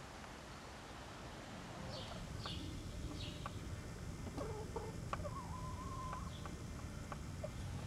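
Domestic chickens clucking and calling, with one drawn-out call about five seconds in, after a few short high chirps about two seconds in.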